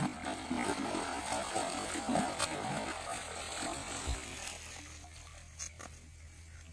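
A hooked fish thrashing at the surface, splashing and churning the water for about four seconds before dying down.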